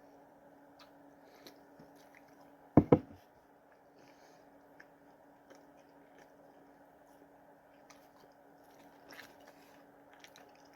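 Faint chewing and biting on a burger over a steady low hum, with two sharp knocks close together about three seconds in.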